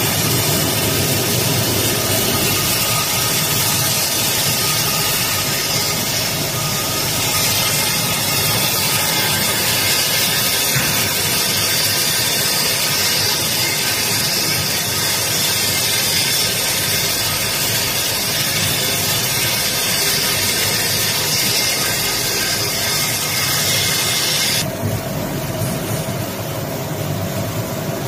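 Spring end grinding machine grinding the ends of steel coil springs held in its rotating carrier plate: a loud, steady grinding hiss over the machine's running hum. About 25 seconds in the grinding cuts off suddenly, leaving only the quieter hum of the machine still running.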